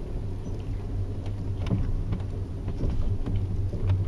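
Steady low rumble of a moving Amtrak passenger train heard from inside the car, with a few faint clicks.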